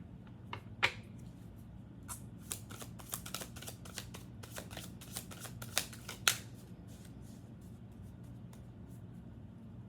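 Thick cardboard tarot cards being handled: a few sharp clicks, then a quick flurry of crisp card clicks and rustles lasting a few seconds, ending about two-thirds of the way through, after which only a faint steady hum remains.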